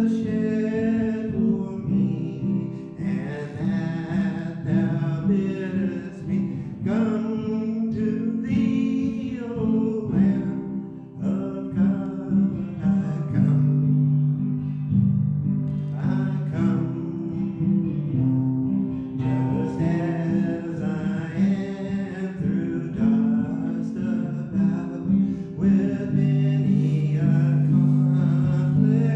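A singer with acoustic guitar accompaniment performing a worship song, the guitar holding steady low notes under the melody.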